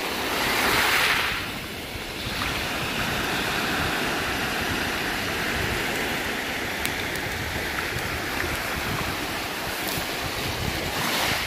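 Small sea waves breaking and washing up a pebble shore, with wind buffeting the microphone. The surf swells loudest about a second in and again near the end.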